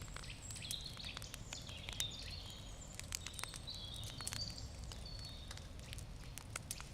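Campfire wood crackling with frequent sharp pops, one louder pop about two seconds in, over a low steady rumble. Small birds chirp at the same time.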